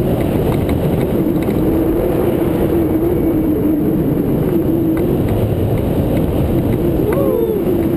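Steady rush of wind over the microphone of a camera mounted on a hang glider in flight, with a continuous whistling tone that wavers slightly in pitch. A short sliding note is heard near the end.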